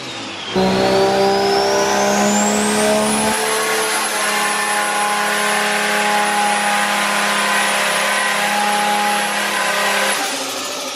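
Toyota JZX100's single-turbo straight-six under load on a chassis dyno during a tuning run. It starts suddenly about half a second in, with a high turbo whine rising for a couple of seconds and then holding steady while the engine holds even revs, before winding down just after ten seconds.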